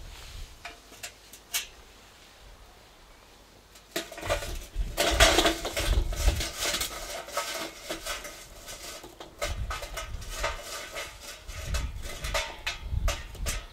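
Hot charcoal briquettes tumbling out of a metal chimney starter onto a bed of unlit briquettes in a steel charcoal basket: a few single clinks at first, then a long run of clattering and scraping from about four seconds in.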